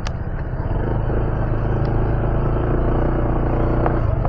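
Honda ADV 160 scooter's single-cylinder engine running as it is ridden through mud, its note climbing slightly and dipping briefly near the end, under a steady rumble. A sharp click right at the start.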